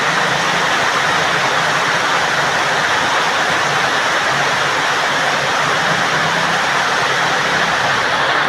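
Heavy rain pouring steadily as a dense, even hiss, with a faint low drone underneath.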